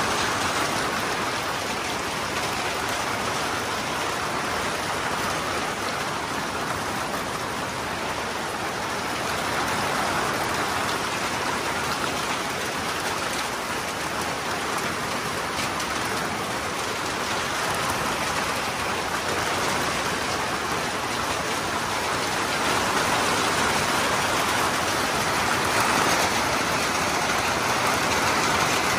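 Steady rainfall, an even hiss of rain that grows a little louder in the last few seconds.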